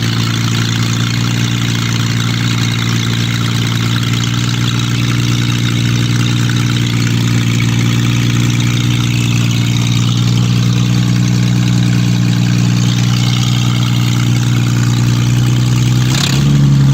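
1970 Mercedes-Benz 250's straight-six with freshly rebuilt twin Zenith 35/40 carburettors idling steadily through short stub exhaust pipes, a little loud. The engine note changes about a second before the end.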